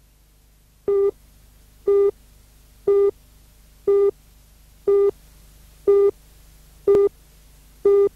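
Countdown leader beeps on a broadcast news videotape: eight short beeps of one steady tone, evenly spaced one per second, marking the count down to the start of the report.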